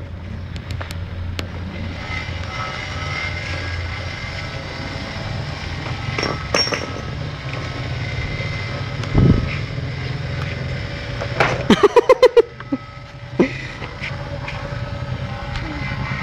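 Skateboard wheels rolling over pavement, a steady rumble, with a knock about nine seconds in and a short fast run of sharp sounds around twelve seconds in.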